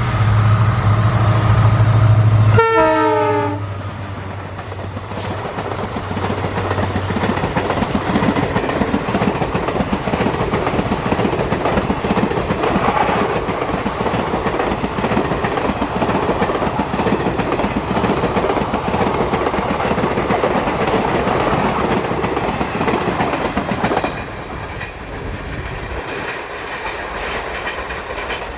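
An Indian Railways EMD diesel locomotive passes close at speed, its engine running loud, and its horn sounds about three seconds in, dropping sharply in pitch as it goes by. The train's wagons then roll past with a continuous clickety-clack of wheels over rail joints, dropping noticeably in level for the last few seconds.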